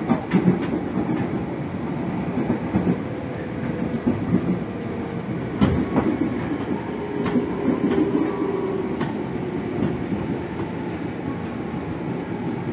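JR 205 series electric commuter train car heard from inside while running: a steady rumble of wheels on rail, with sharp clicks as the wheels pass over rail joints. A faint steady tone runs for a few seconds in the middle.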